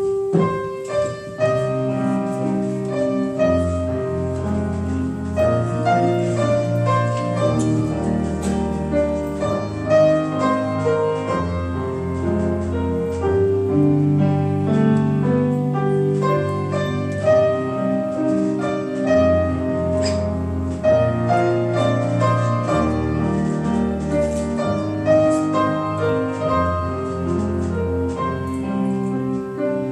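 Piano playing a slow instrumental introduction, chords over a moving bass line with a melody on top.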